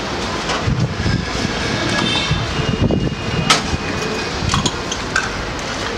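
Steady background rumble with a few sharp metallic clinks of steel pots and a tumbler being handled while tea is made, the clearest about halfway through and near the end.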